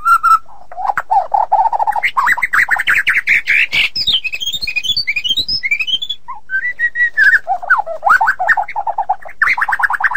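White-rumped shama singing a long, varied song of rapid trills, whistled notes and sweeping phrases, with a brief pause about six seconds in.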